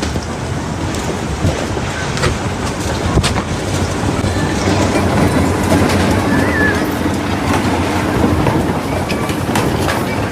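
Strong wind running steadily and buffeting the microphone, with a low rumble and scattered sharp clicks.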